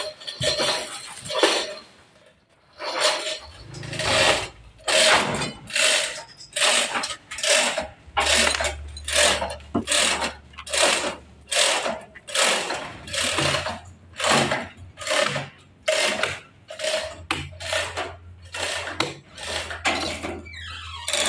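Manual chain hoists lifting a heavy trembesi log: the hand chain rattles and the hoist's ratchet clicks in a steady rhythm, about one and a half pulls a second. A low hum comes and goes in the background.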